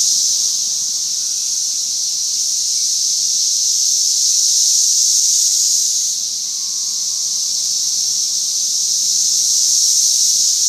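A dense chorus of cicadas, a loud steady high buzz that dips slightly about six seconds in and then swells again.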